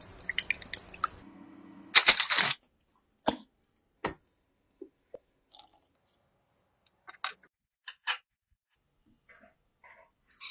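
Water poured from a glass kettle into a baking tray of foil-covered custard cups, then a short loud rustle and a string of separate light clicks and taps, as of utensils and dishes.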